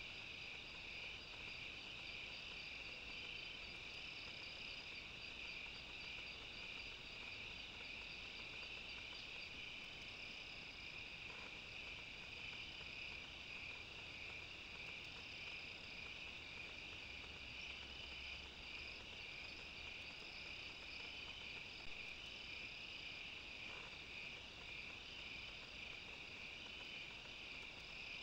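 Steady night-time chorus of crickets and other insects: a continuous trill with a higher, finely pulsing trill above it.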